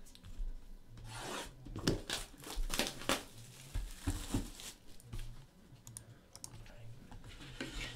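Clear plastic shrink-wrap being torn off a trading card box and crinkled in the hands, a string of short rips and rustles.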